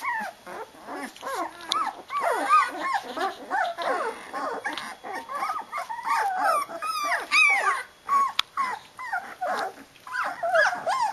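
A litter of 13-day-old flat-coated retriever puppies squealing and whining, many short rising-and-falling cries overlapping without a break.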